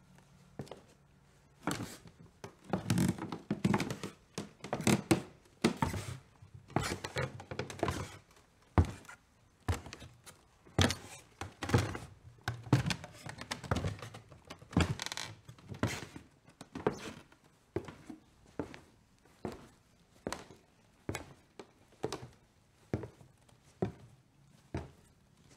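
Footsteps on the wooden floorboards and stairs of an old house. They are dense and loud for the first few seconds, then settle into an even walking pace of a little more than one step a second.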